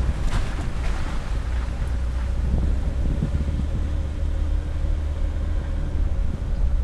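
Vehicle driving slowly on a dirt forest road: a steady low engine and tyre rumble with wind buffeting the microphone, and a few knocks and rattles in the first second or so.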